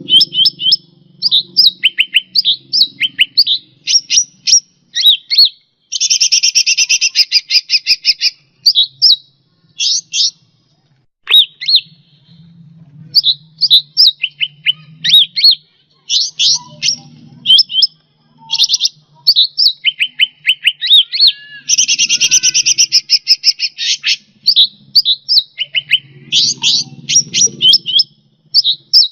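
Cucak rante songbird singing: runs of quick, high, sharp chirps and whistled notes, broken by two long, fast rattling trills about six and twenty-two seconds in.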